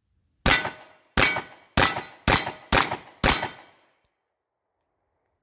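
Sarsilmaz B6 9mm pistol firing six shots in quick succession, each about half a second apart, each report trailing off in a short echo.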